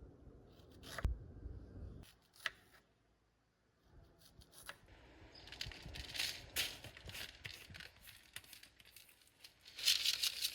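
Irregular rustling, crinkling and clicking of something being handled, with a thump about a second in and the loudest crinkling burst near the end.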